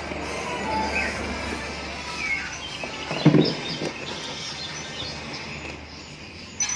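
Background workshop noise under a steady low hum, with a few short chirps and a knock about three seconds in.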